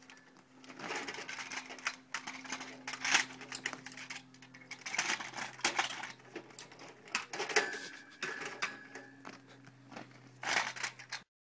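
Children's kick scooters clattering and rattling against each other and the metal rack as they are pulled out, with a string of sharp knocks and clicks, the loudest about three seconds in, about seven and a half seconds in and near the end. A faint steady hum runs underneath.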